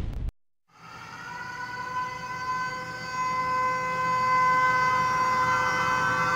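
Synthesized intro sound effect: the tail of a deep boom cuts off abruptly, then after a brief silence a held electronic chord of several steady tones fades in and slowly grows louder.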